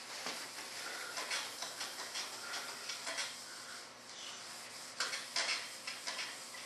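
Cloth rubbing mold-release wax into the surface of a resin mold by hand: a continuous scratchy swishing of the strokes, with a few sharper clicks about five seconds in.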